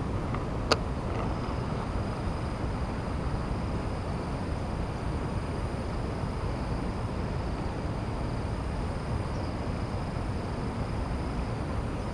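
Steady low outdoor rumble with a faint, steady high whine above it, and one sharp click about a second in.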